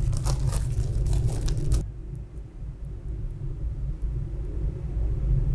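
Crinkling and rustling of a thin plastic film strip and its adhesive backing being handled and peeled, stopping abruptly about two seconds in. A steady low hum runs underneath.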